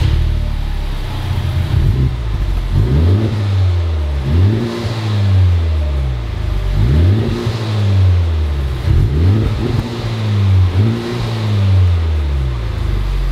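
A Honda Civic Type R (FK8) 2.0-litre turbocharged four-cylinder idles through its factory exhaust and is revved about five times, each rev rising in pitch and falling back to idle. It is the stock exhaust sound before the aftermarket exhaust goes on.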